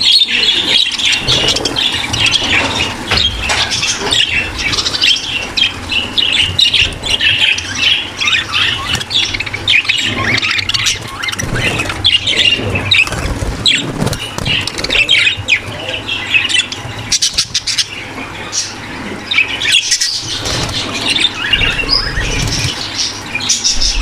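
A flock of budgerigars in a breeding aviary chattering, many birds calling at once in a dense, unbroken stream of short chirps and squawks: the sound of a colony in breeding condition.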